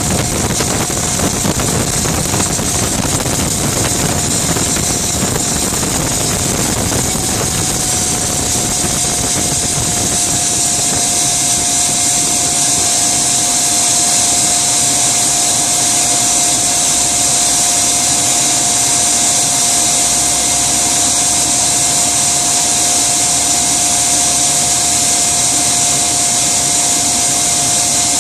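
Gas turbine engine of a Rover Jet 1 recreation running: a steady high whine over a loud rushing hiss. About seven seconds in the whine rises slightly in pitch and then holds, and the hiss grows stronger as the low rumble drops away.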